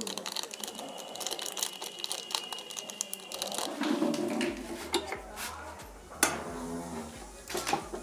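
Foil seasoning sachet crinkling as it is shaken and squeezed empty over the kettle, for about the first half. Then a few sharp taps, the loudest about two-thirds of the way through.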